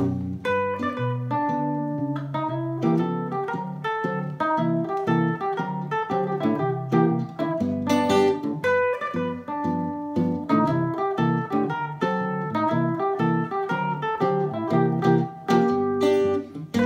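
Instrumental duet of an electric mandolin and an archtop electric guitar: a plucked melody in a steady, even tempo over picked chords.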